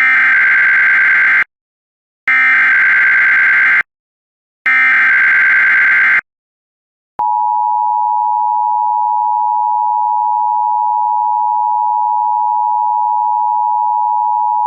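Emergency Alert System signalling: three bursts of SAME digital header data tones, each about a second and a half, then from about seven seconds in the steady two-tone EAS attention signal, held without change. This is the header and alert tone that open a severe thunderstorm watch bulletin.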